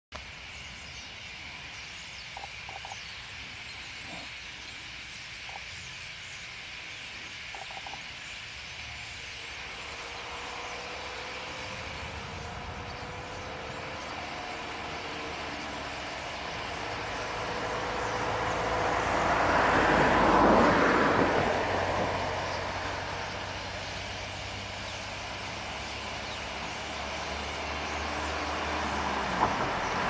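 A huge flock of starlings chattering together as one continuous din. A loud rushing sound builds from about a third of the way in, peaks around two-thirds through, fades, then swells again near the end.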